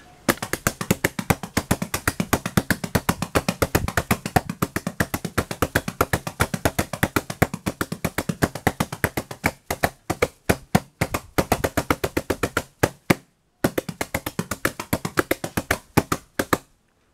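Drum brushes tapping on various surfaces in a fast, even stream of strikes, several a second, playing a kotekan-style polyrhythm pattern; it breaks off briefly a few times in the second half.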